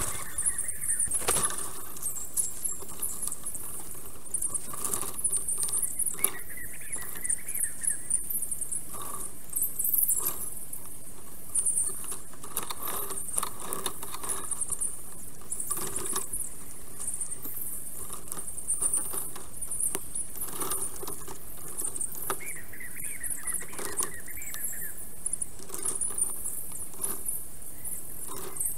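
Dense, high, chattering birdsong with scattered clicks and taps, and a couple of brief warbling phrases lower down, about six seconds in and again after twenty seconds.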